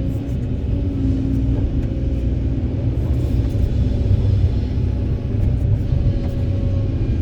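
Kobelco SK200 excavator's diesel engine working, a continuous low rumble with a hum above it that changes pitch a few times.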